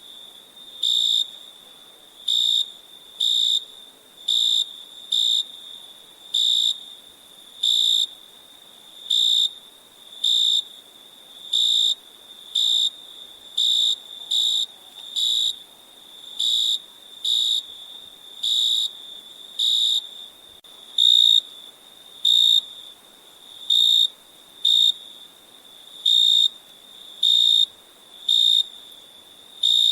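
Crickets chirping: short, high-pitched chirps about once a second in a slightly uneven rhythm, over a faint steady high trill.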